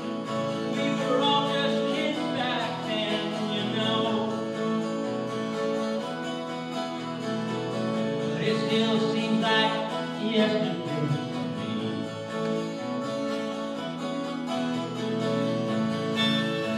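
A school band playing live: acoustic guitar over held band chords, with a wavering, vibrato melody line coming in twice.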